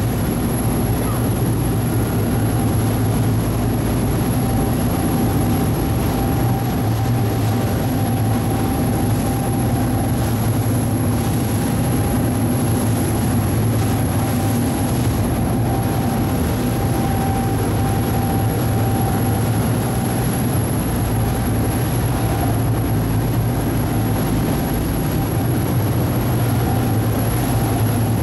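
Passenger ferry's engine running steadily under way, an even deep drone with a faint steady whine above it, heard on board.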